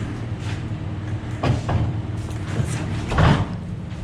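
Engine idling steadily, with two short clunks, the louder one about three seconds in.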